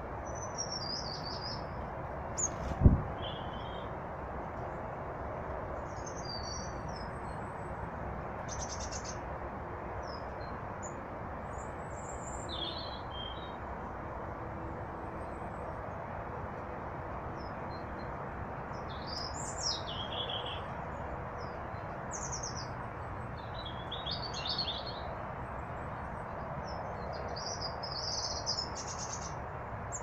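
Small songbirds chirping and tweeting in scattered short calls over a steady rushing background. A single sharp knock about three seconds in is the loudest sound.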